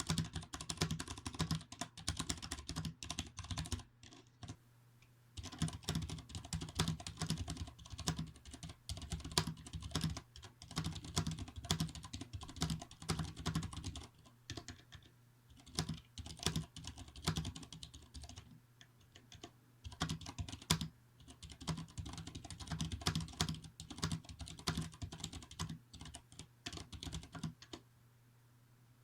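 Fast typing on a Vortex Race 3 mechanical keyboard with Cherry MX Clear switches: rapid clacking keystrokes in runs, broken by a few short pauses.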